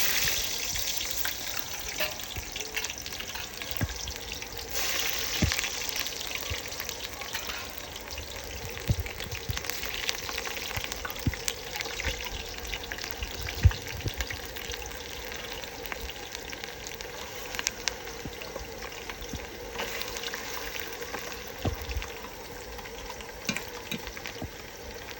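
Chicken cooking in a pot with a little oil, sizzling steadily with scattered sharp crackles and pops; the sizzle grows louder for a few seconds about five seconds in.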